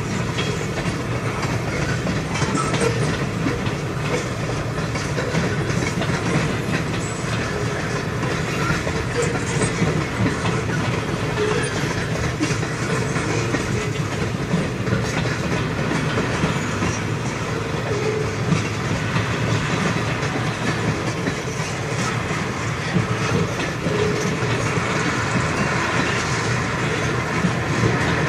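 Railway tank cars of a freight train rolling past: a steady rumble of steel wheels on rail, with a constant run of clicking and clacking as the wheels cross the rail joints.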